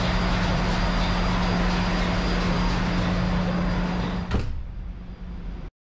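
Loud, steady ship's engine-room machinery noise with a constant low hum. About four seconds in, the engine control room door shuts with a sharp knock and the noise drops to a much quieter muffled hum inside the sound-insulated control room.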